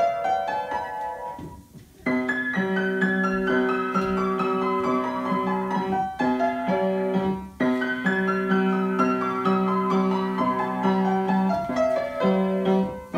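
Upright piano played by a child: a melody of short notes over repeated low accompanying notes, with a brief pause about two seconds in and short breaks later on.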